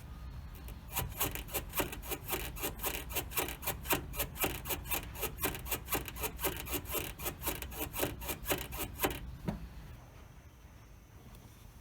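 Rapid, rhythmic rubbing squeak, several strokes a second, typical of a worn suspension or underbody part on a Honda Zest being worked back and forth to reproduce its squeak. The strokes stop about nine seconds in.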